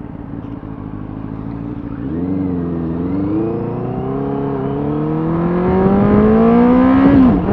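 Benelli TNT 600's inline-four engine accelerating hard under load, its note rising steadily and growing louder for about five seconds after a low, steady start. Near the end the pitch dips briefly and settles at a steady note as the rider shifts up a gear.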